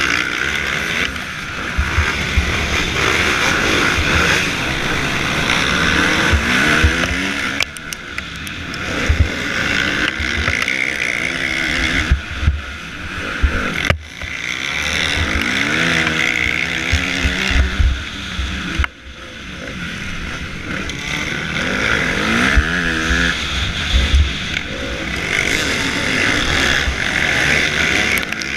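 Motocross bike engine revving hard at racing speed, the pitch climbing again and again as it accelerates, then falling as the throttle is chopped. Several times the sound drops off sharply before building back up.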